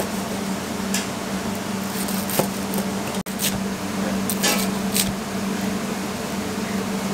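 A chef's knife crunches through a crisp, flaky baked crust on a plastic cutting board, giving several short crackling cuts. Under them runs a steady low mechanical hum of kitchen equipment.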